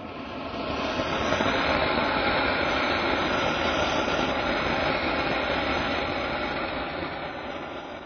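A Seeta Geeta firework fountain jetting sparks out of a football with a loud, continuous rushing hiss. It builds up over the first second, holds steady, then slowly fades toward the end.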